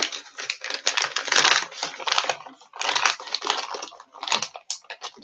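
Crinkling and rustling of a plastic soft-bait package being handled, in irregular bursts of crackle.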